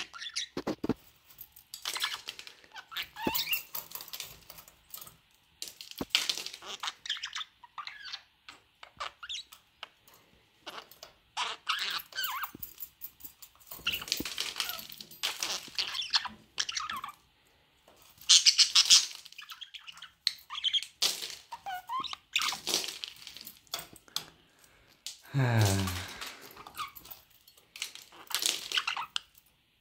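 Budgerigar chattering and chirping in short, high, squeaky warbled bursts with brief pauses between them.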